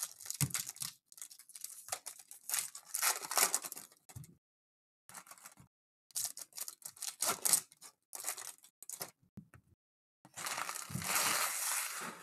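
Foil wrappers of Panini Mosaic basketball packs being torn open and crinkled by hand, in a series of short rustling bursts with a longer one near the end.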